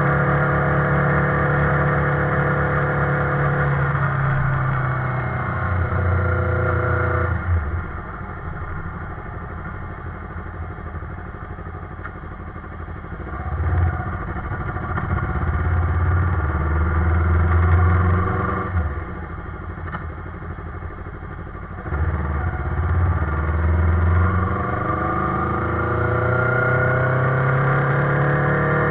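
Motorcycle engine under way, accelerating in rising pulls. The throttle is shut abruptly about seven and nineteen seconds in, then the engine picks up again.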